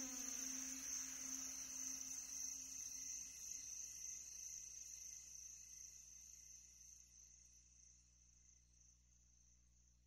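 Crickets chirring in a steady high trill that fades out gradually. A low hum dies away in the first three seconds.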